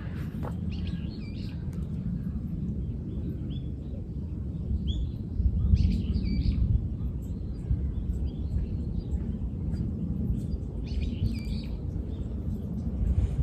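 Wild birds chirping and singing in short phrases, in clusters a few seconds apart, over a steady low outdoor rumble.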